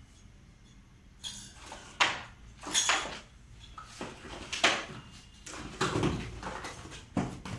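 Plastic toy track parts and their cardboard packaging being handled: a run of clattering knocks, clicks and rustles that starts about a second in.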